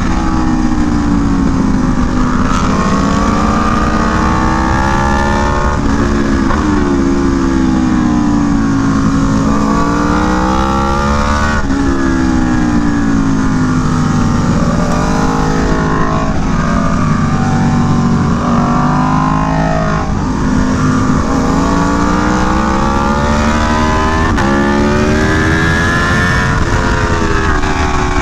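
Aprilia Tuono V4 1100 Factory's V4 engine through an SC Project CR-T exhaust, heard onboard at track speed. The revs climb and then drop sharply over and over as the bike accelerates through the gears and slows for corners.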